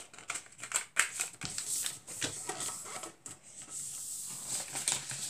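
A sheet of paper being folded and handled on a wooden tabletop: rustling and crinkling broken by a run of short sharp clicks and taps as the paper is moved and creased.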